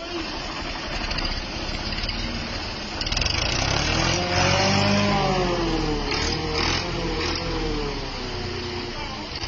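Modified Fiat tractor's diesel engine revving up. Its note climbs from about three seconds in to a peak a couple of seconds later, then drops back and wavers up and down.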